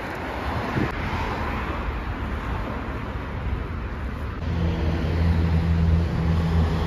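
City road traffic: a steady wash of car and tyre noise from a busy avenue. About two-thirds of the way in, a steady low engine hum joins it.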